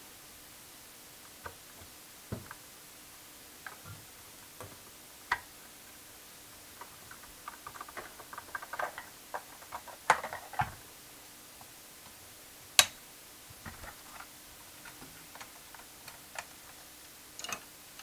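Plastic keys and springs of a MIDI keyboard being unclipped from the key bed by hand: scattered plastic clicks and snaps, a rapid clattering run around the middle, and one sharp snap, the loudest, a little after.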